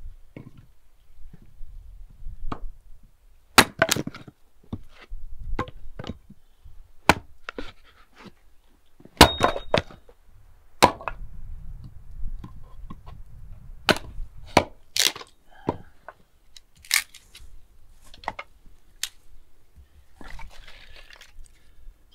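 Hatchet chopping and splitting firewood into kindling: a string of sharp, irregularly spaced chops and cracks of wood splitting. One blow about nine seconds in rings briefly.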